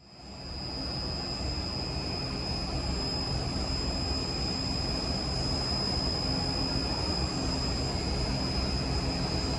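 Carbureted 436 cubic inch small-block Chevy stroker V8 on an engine dyno, running steadily on its first startup. A steady high-pitched whine sits over the engine note.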